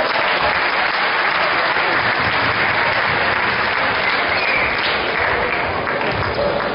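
Basketball crowd applauding, a steady dense clapping that starts suddenly and dies away near the end.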